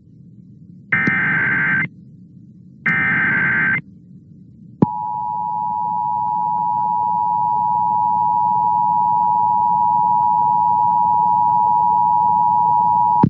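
Emergency Alert System signals: the last two of three SAME digital header bursts, each about a second long with a second's gap, then about five seconds in the two-tone attention signal, a steady dual tone that holds for about eight and a half seconds and cuts off suddenly. The sequence marks the start of an EAS activation for a flash flood warning.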